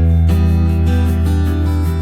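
Background music led by an acoustic guitar with a steady bass.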